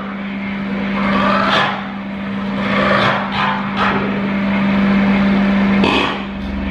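Experimental electronic noise improvisation: a steady low synthesizer drone, held until it cuts off about six seconds in, under repeated bursts of noise that swell and fade.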